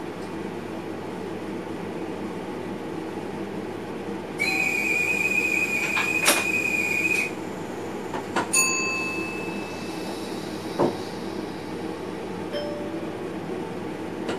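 Steady rumble of a train heard inside the driver's cab, with a high electronic warning tone sounding steadily for about three seconds near the middle. A few sharp clicks and brief ringing tones follow.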